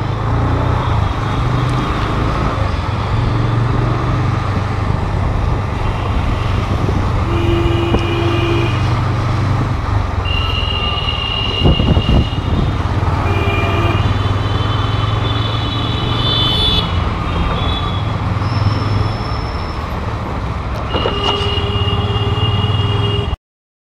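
TVS Apache motorcycle engine running steadily while riding through city traffic, heard from the rider's seat, with vehicle horns honking on and off around it. The sound cuts off abruptly shortly before the end.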